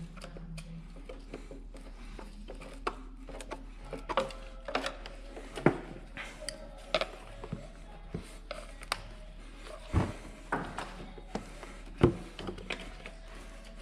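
Irregular clicks, taps and knocks of an Arctic Cat Alterra 700's plastic air filter housing and a screwdriver being handled as the housing is worked loose, with a few sharper knocks about 5 s, 10 s and 12 s in.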